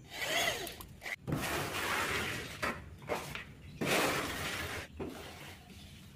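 Steel trowel scraping skim-coat plaster across a cement-rendered wall in several short gritty strokes, each cut off abruptly.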